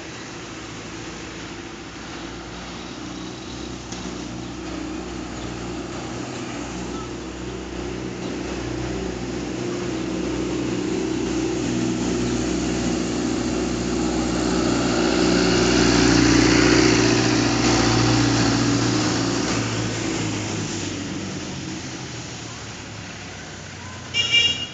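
A motor vehicle's engine running steadily, growing louder for about sixteen seconds and then fading away. A brief high-pitched sound comes near the end.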